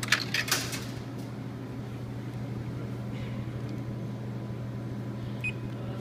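Vending machine humming steadily, with a few sharp clatters in the first half-second and a single short beep near the end as a selection button on its keypad is pressed.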